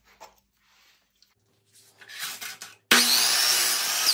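Delta compound miter saw running and cutting through a 1x4 PVC trim board. The loud cut starts suddenly about three seconds in and lasts about a second, and the blade begins to wind down at the very end.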